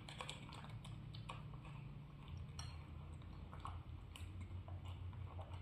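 Faint, irregular small clicks and taps as a young monkey handles a paper milk carton and sips from it through the straw, over a low steady hum.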